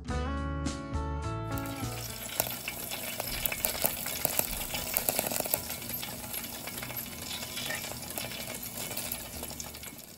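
Air-fried whole pork belly sizzling and crackling in the air fryer basket, its rendered fat popping with many fine crackles: the sign of a crisp outside and a juicy inside. A short bit of music ends about a second and a half in.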